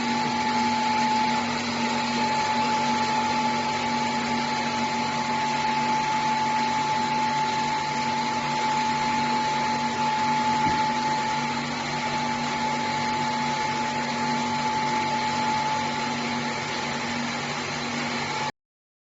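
Electric stone-disc grinder for sesame paste and peanut butter running steadily under power, a constant grinding hum with a steady whine. The two grinding stones are set close enough to rub with an even friction sound. The sound cuts off abruptly near the end.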